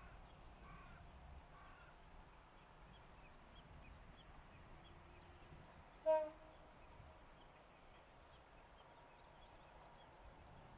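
Crows cawing: three faint caws in the first second and a half, then one much louder short caw about six seconds in, over faint high chirping.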